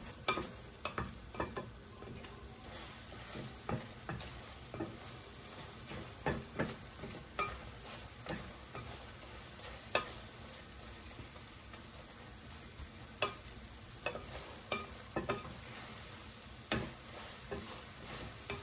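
Chopped clam meat sizzling as it stir-fries in a large stainless steel pan, its sauce cooked down. A wooden spatula scrapes and knocks against the pan at an irregular pace, about once a second, over the steady sizzle.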